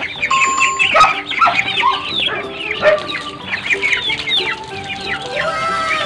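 A brood of young poultry chicks peeping constantly, many short, high, downward-sliding peeps overlapping several times a second, with a few lower calls from older birds near the end.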